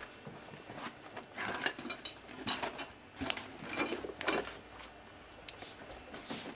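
A bag being handled: short rustles and light clinks and knocks in quick bursts over the first four seconds or so, then quieter.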